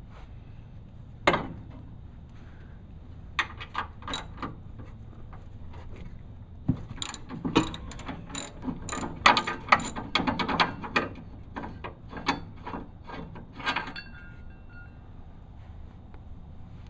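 Hand ratchet wrench clicking in short runs of strokes, with a sharp metallic click about a second in and the busiest ratcheting in the middle.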